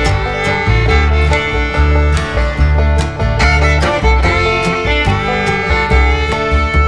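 Background music: an upbeat country or bluegrass-style track with fiddle and guitar over a steady beat.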